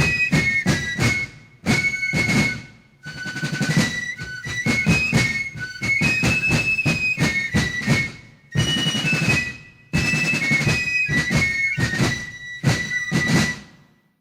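Instrumental background music: a high melody over a steady beat of percussive strikes, fading out just before the end.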